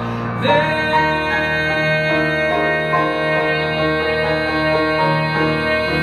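Live piano accompaniment under a man singing long held notes.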